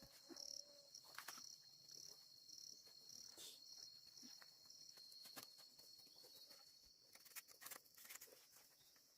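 Faint insects, probably crickets, chirring: a steady high thin tone with high chirps pulsing about two or three times a second that fade out partway through. Scattered faint clicks run alongside.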